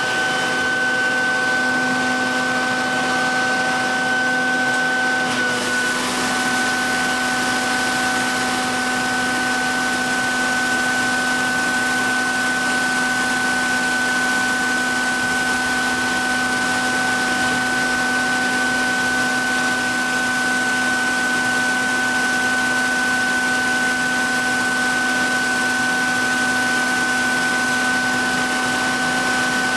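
Vacuum running steadily as dust extraction at a knife-sharpening station, a constant motor hum over airflow hiss. About five seconds in, the high hiss gets stronger.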